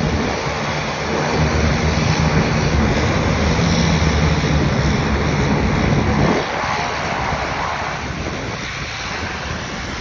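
A floatplane's engine drones low on the water, with waves lapping and wind buffeting the microphone. The engine drone drops away sharply about six seconds in, leaving the wind and water.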